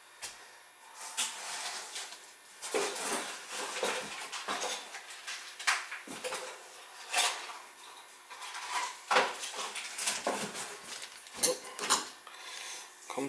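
Crinkling of a plastic bag and small metallic clinks and taps as a stainless sink-hole cover plug is handled in its bag, in irregular bursts throughout.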